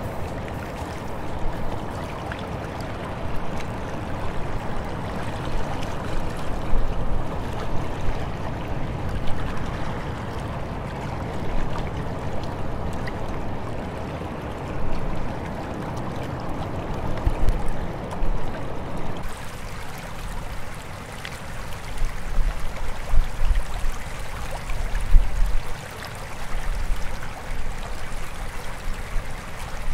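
River water rushing and gurgling steadily, with intermittent low rumbles; the sound changes abruptly about two-thirds of the way through.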